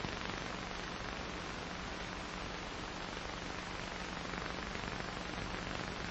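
Steady hiss of an old film soundtrack, with a faint low hum underneath.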